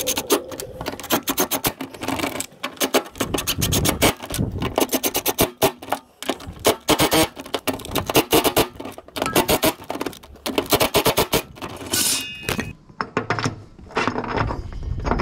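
DeWalt 20V Max cordless impact driver hammering in repeated bursts, running down the nuts that hold a new mower-deck spindle to the deck. It stops about 13 seconds in, leaving a few light knocks of parts being handled.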